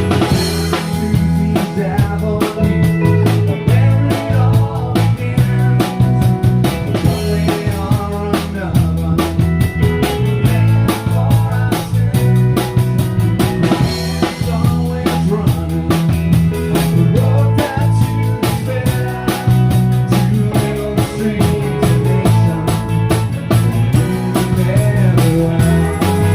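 Live rock band playing: a full drum kit keeping a steady beat under a strong bass guitar line.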